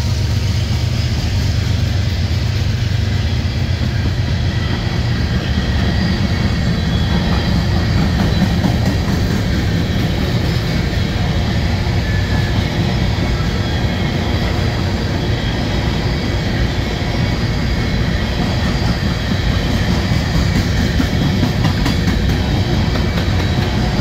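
Freight train cars (coal hoppers, then covered hoppers) rolling past close by, with a steady rumble of wheels on rail and faint high wheel squeal now and then. Wind buffets the microphone.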